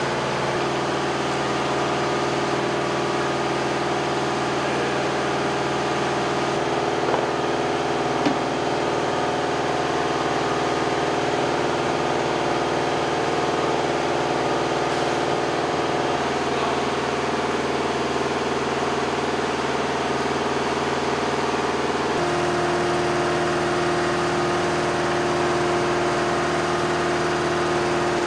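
Steady drone of running machinery with several held tones, its pitch mix shifting abruptly a few times. Two short clicks come around seven and eight seconds in.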